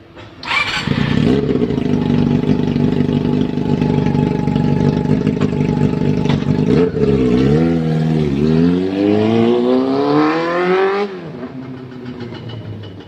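Honda CB400 motorcycle engine fires up about half a second in and settles into a steady idle. After a couple of quick throttle blips, it revs up in one long rise, drops back to idle and stops near the end. The engine starts readily now that its carburettor hard-starting problem has been fixed.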